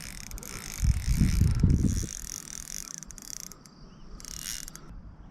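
Fishing reel winding in line under the load of a heavy fish, its gears ticking in a fine, fast, even rattle. A loud low buffeting comes about a second in and lasts about a second.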